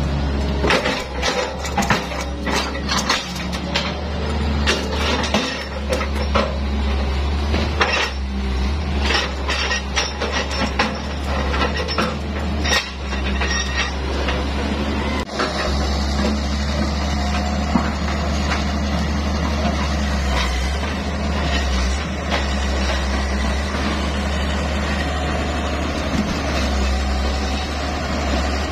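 Hyundai crawler excavator's diesel engine running steadily, with many sharp knocks and clunks of rosewood logs striking one another, thickest in the first half.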